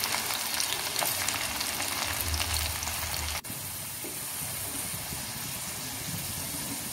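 Flour-coated sweet corn kernels deep-frying in hot oil: a steady sizzle with light crackling. It breaks off sharply about three and a half seconds in, then carries on a little quieter.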